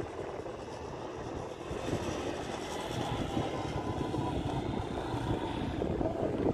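Small quad bike (ATV) engine running as the bike is ridden across a dirt course, over a rough low rumble.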